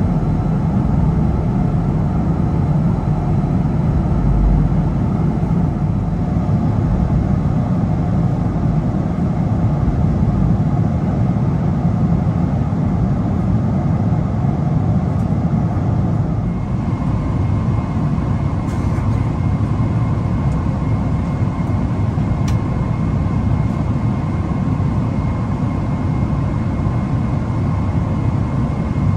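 Steady low rushing noise inside a Boeing 777-300ER's cabin in cruise flight, the sound of the jet engines and the airflow. Its tone shifts slightly a little over halfway through.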